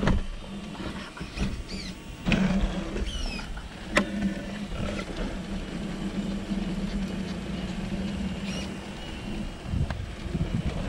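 Electric motor and geared drivetrain of a Traxxas TRX-4 RC crawler running at a steady low throttle with an even hum, as it crawls over rubble and wood. The tyres and chassis make scrapes, and a sharp click comes about four seconds in.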